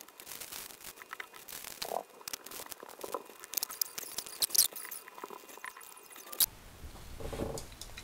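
Many small, sharp plastic and metal clicks, taps and scrapes as the CPU cooler mounting brackets are swapped on an AM4 motherboard.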